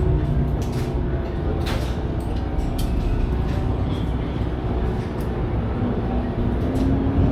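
Racing car engine running with a steady low rumble, with a few scattered clicks.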